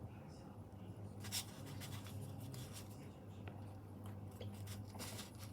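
Faint handling of stickers and sticker sheet with tweezers: light paper rustles and small ticks, with one sharper click about a second in, over a steady low hum.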